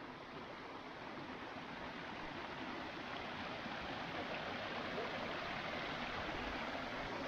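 Steady rushing of a waterfall, an even wash of water noise that grows slightly louder.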